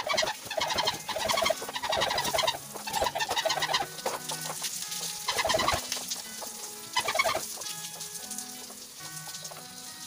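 Chickens clucking in repeated choppy bouts, over faint steady low tones.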